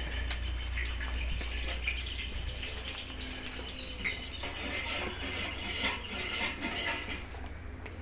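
Pork lard frying in a large iron tacho over a wood fire: a steady sizzle with many sharp crackling pops.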